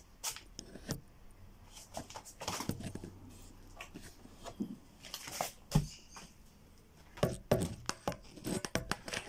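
Handling noise from a phone held against clothing as it is moved about: irregular rustling, clicks and knocks, with one louder thump a little past the middle.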